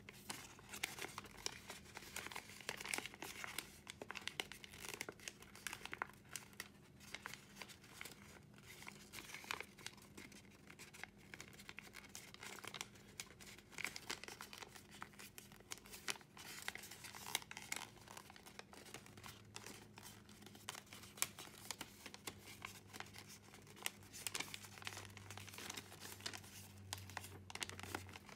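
A sheet of origami paper crinkling and crackling under the fingers as a partly folded model is pinched, creased and shaped. The crackles are many, small and irregular.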